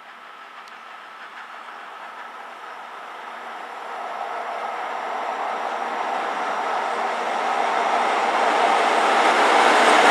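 MÁV class 431 electric locomotive approaching along the track, its running noise growing steadily louder as it draws near.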